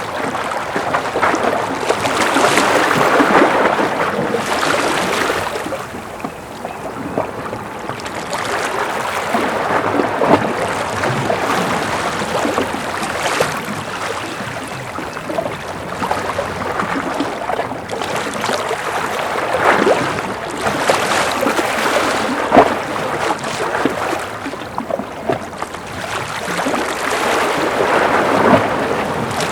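Small ocean waves washing and lapping against a concrete breakwater, swelling and easing several times, with light splashing crackle.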